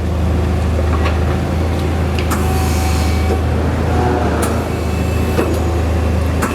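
2008 Okuma Captain L470M CNC turning center running during a tailstock move: a steady low hum with several short clicks and knocks spread through.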